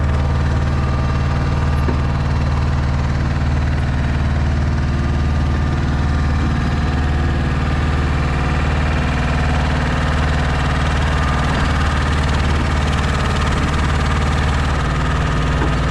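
Steady low drone of a DAF XF 480 truck's six-cylinder diesel engine running at idle to drive the truck-mounted loader crane's hydraulics, even in level throughout.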